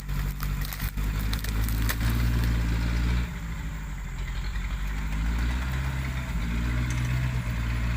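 A 4x4's Toyota 13B diesel engine running and working, its pitch rising, dropping sharply a little after three seconds in, then climbing again. Sharp crackling clicks over the first two seconds.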